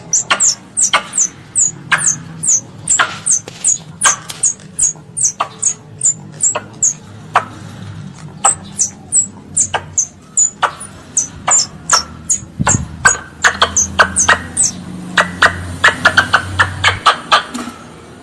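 Young squirrel calling for its mother: a steady run of short, very high chirps, about three a second, each dropping quickly in pitch, coming faster near the end.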